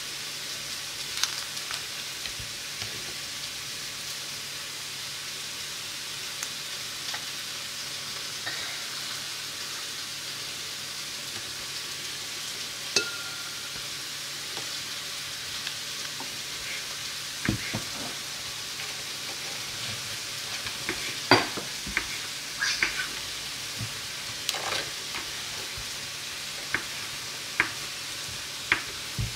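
Steady sizzling hiss of food frying in a pan, with scattered sharp knocks of a knife and hands on a wooden cutting board, coming more often in the second half as a boudin blanc is sliced.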